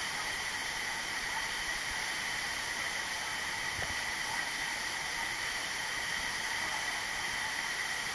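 Steady rush of a waterfall: an even, unbroken noise.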